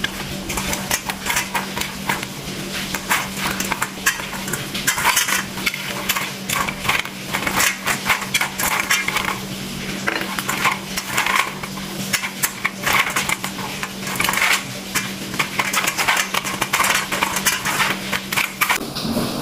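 Pinhão, the hard-shelled seeds of the Brazilian Paraná pine, clattering against a stainless-steel colander as a hand stirs and picks through them: a dense, irregular run of clicks and knocks. A steady low hum lies underneath.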